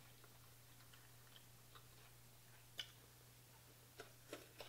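Near silence over a low steady hum, broken by a few faint sharp clicks and smacks of eating seafood by hand: fingers picking through shells in a glass bowl and chewing. There is one clear click about three seconds in and a few more near the end.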